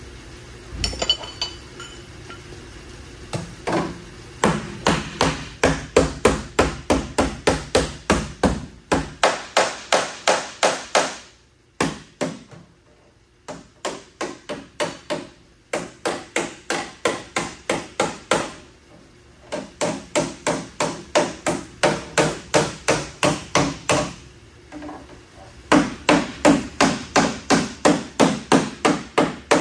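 Hammer blows on the metal body of a van under repair, about three strikes a second, in four long runs separated by short pauses, each blow ringing briefly.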